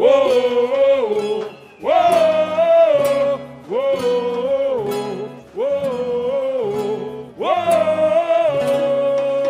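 Samba-enredo sung by a group of male voices over instrumental accompaniment, in phrases about two seconds long with short breaks between them, closing on a long held note near the end.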